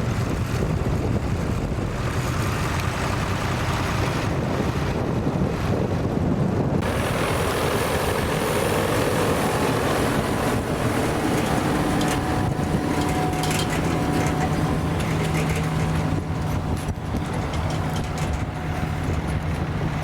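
Tractor engine running steadily. Its hum becomes clearer in the second half, over wind buffeting the microphone.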